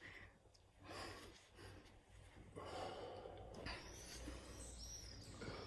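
Faint breathing during a push-up exercise done from the knees, with a couple of soft, drawn-out exhalations.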